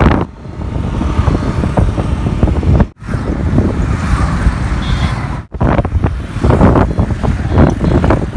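Wind rumbling on the microphone over road traffic of motorcycles, scooters and cars, heard while moving along with the traffic. The sound drops out sharply for an instant twice, about three and five and a half seconds in.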